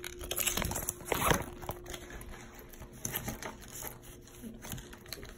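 Handling noise: rustling and small clicks of a fabric wristlet, its strap and metal clip being turned over by hand, loudest about a second in.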